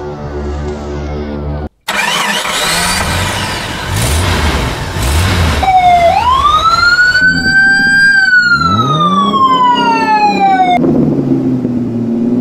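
Background music for the first couple of seconds, cutting off abruptly. Then a dubbed-in truck sound effect: a rough noisy stretch, one long whine that climbs for about two seconds and slides slowly back down, and near the end a lower wavering engine note.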